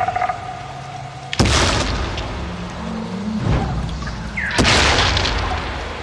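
Preview of dinosaur sound effects. Sudden booming hits come about a second and a half in and again near five seconds, each dying away over a couple of seconds over a low rumble. Short pitched calls sound between them.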